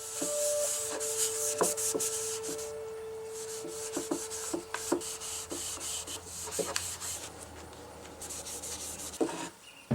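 Wood being worked with an abrasive by hand: repeated scraping strokes that start and stop, with a few light knocks between them.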